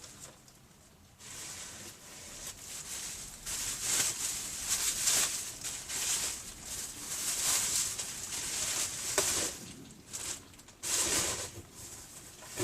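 Plastic packaging rustling and crinkling in irregular spells as air-tool accessories are taken out and unwrapped.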